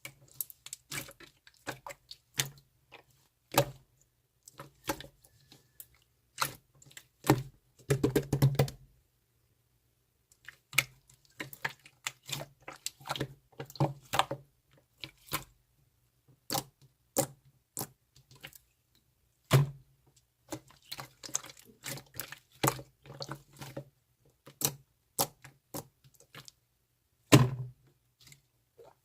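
Slime being poked, squeezed and folded by hand, giving irregular sticky clicks and pops, with a denser stretch of crackling about eight seconds in and a short pause just after.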